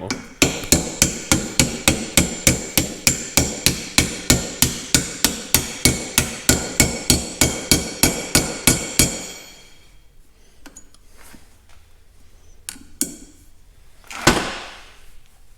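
A hammer striking metal in a steady run of about two dozen ringing blows, a little under three a second, driving a tight-fitting part in; the blows stop about nine seconds in, followed by a few faint knocks and a short rush of noise near the end.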